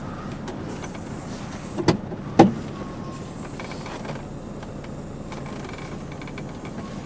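Truck cab with the engine running steadily, two sharp clicks about two seconds in, then a faint electric motor whirring as a power side mirror folds in.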